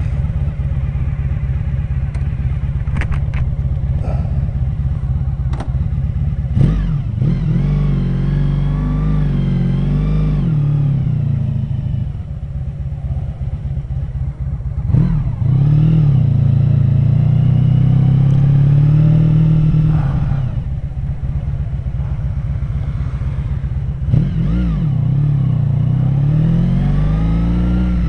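Honda VF1000R's V4 engine, running on VF1000F-model carburetors, runs steadily with a few sharp clicks in the first few seconds. About six seconds in it pulls away, and it then climbs in pitch in three separate pulls, easing off between them.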